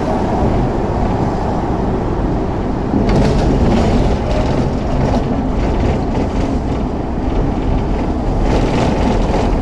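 Hong Kong double-decker tram running along street track, heard from on board: a steady loud rumble of wheels on the rails and the running gear, with brief rattling about three seconds in and again near the end.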